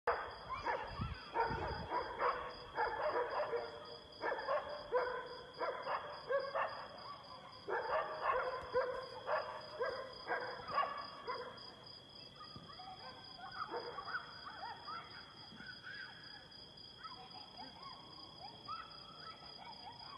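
A pack of street dogs barking repeatedly, several at once, loud for about the first twelve seconds and then fainter.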